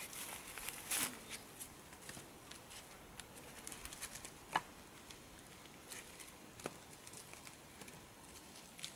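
Scattered knocks and clicks of dead wood sticks being set and shifted on a woodpile by gloved hands, with a light rustle of twigs; the sharpest wooden click comes about four and a half seconds in.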